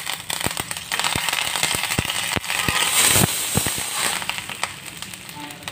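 Fresh curry leaves spluttering in hot oil with fried onion vadagam: sharp, irregular crackling pops over a sizzle, dying down near the end.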